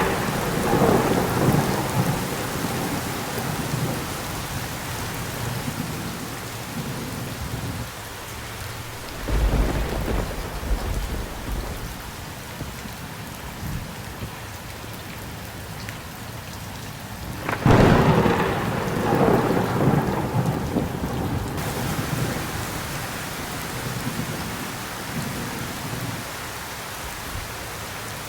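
Heavy rain falling steadily, with rolls of thunder. A rumble dies away over the first few seconds, a deep low rumble comes about nine seconds in, and a sharp thunderclap about eighteen seconds in rumbles on for several seconds.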